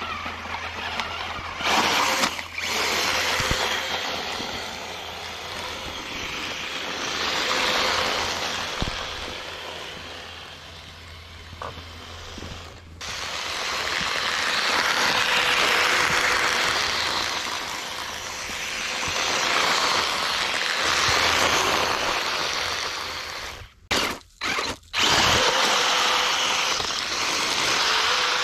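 Small 3D-printed RC tracked vehicle driving through deep snow: its electric drive motors whine with a faint steady tone while the tracks churn the snow. The sound swells and fades as it comes and goes, and breaks off abruptly a few times.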